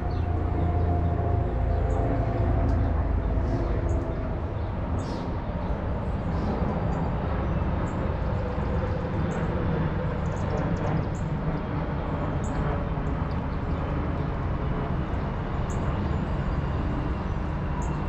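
Steady outdoor background noise dominated by a low rumble, with a few short high ticks scattered through.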